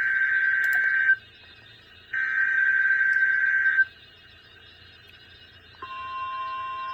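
NOAA Weather Radio SAME alert header, heard as two bursts of high digital data tone, each about a second and a half long with a pause between, sent to trigger receivers for the weekly test. About six seconds in, the steady, lower-pitched 1050 Hz weather alert tone begins.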